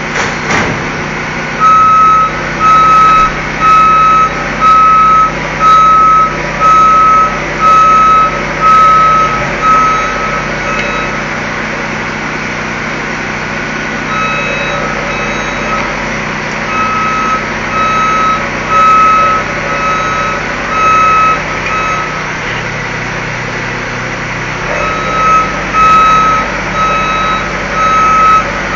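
Motion alarm of an aerial work platform (boom lift) beeping over the steady hum of its engine while the basket moves, in three runs of beeps with short breaks between them. A sharp knock comes right at the start.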